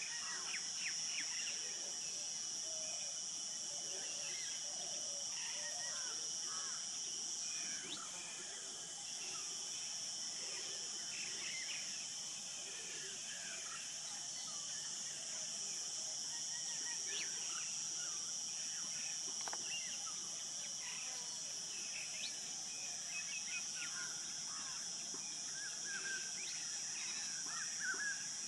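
Natural grassland ambience: a steady high-pitched insect drone that dips briefly about eight seconds in, with many short bird chirps and calls scattered through it.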